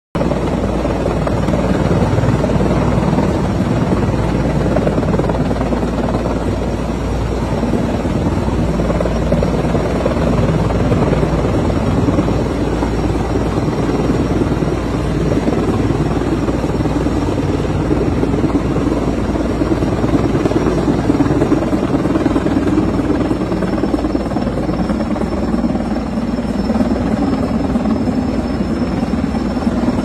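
Erickson S-64 Air-Crane heavy-lift helicopter hovering, its rotor and turbines making a loud, steady heavy drone with a thin high whine above it.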